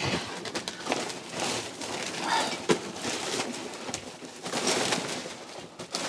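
Rustling of a large woven bulk bag of rubbish and its rope as it is handled and lowered, with a few knocks, the sharpest about halfway through.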